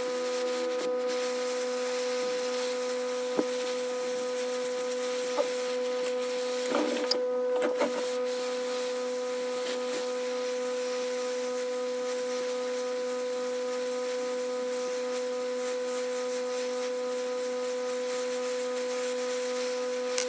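Hot air rework station blowing hot air through its nozzle onto a chip to melt the solder: a steady rush of air with a constant whine from the blower. A few small clicks and taps in the first half.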